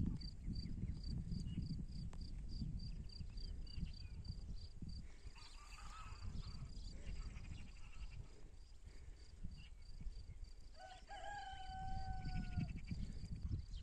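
Farmyard sounds: a high chirp repeats about two and a half times a second through the first half, and one long, steady-pitched farm-animal call lasting about two seconds comes near the end, over a low rumble.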